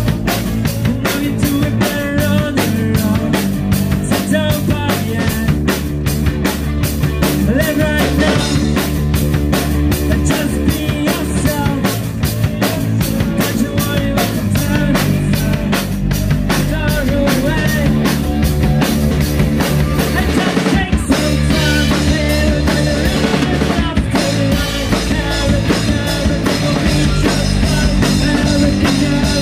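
Live rock band playing through a PA: a steady drum kit beat with electric guitars, electric bass and sung vocals.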